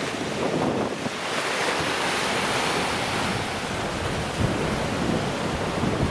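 Sea surf washing on the shore, its hiss swelling about a second in and easing off, with wind buffeting the microphone throughout.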